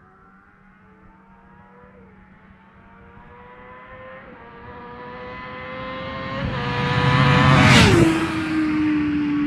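Honda CBR1000RR sport bike's inline-four engine approaching under acceleration, shifting up a few times as it grows steadily louder. It passes close by with a sudden drop in pitch near the end, then pulls away.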